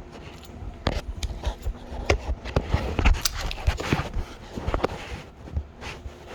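A quick run of irregular knocks, clicks and scuffs, thickest in the middle, from a person moving about and handling things.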